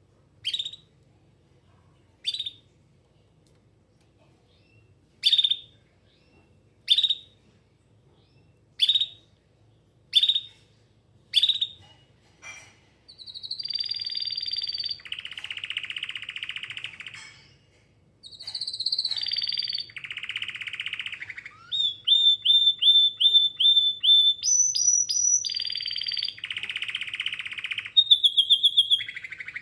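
Domestic canary: a string of single short chirps about every second and a half, then breaking into full song with long buzzing rolls and fast runs of repeated whistled notes.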